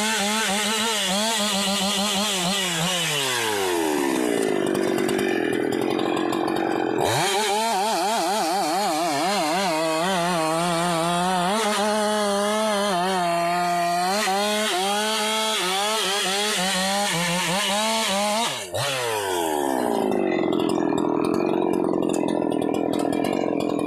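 Husqvarna 395XP two-stroke chainsaw cutting through a rubber-tree log, its engine note wavering under load. The engine's pitch falls twice, and about 7 seconds in it climbs sharply back up. There is a brief break a little before the end.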